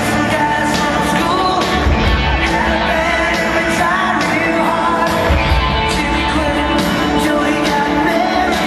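Rock song with a singer and a steady drum beat, played over stadium loudspeakers.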